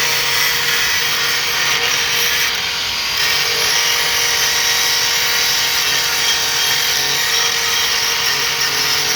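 Large electric grinder running steadily, its abrasive disc grinding on a steel blade with a continuous hiss over the motor's whine.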